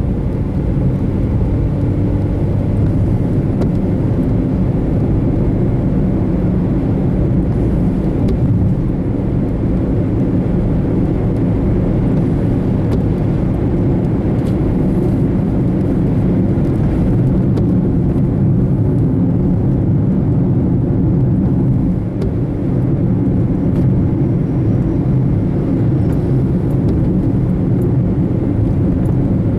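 Steady low rumble of a car on the move: engine and road noise with no breaks.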